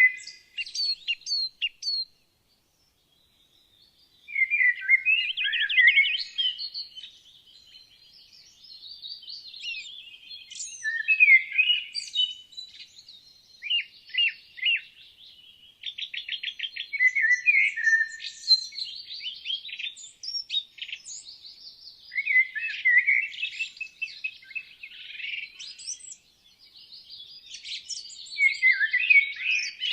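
Several songbirds singing together in woodland: overlapping phrases of warbles, rapid trills and sharp chirps. All sound drops out for about two seconds near the start, then the singing resumes.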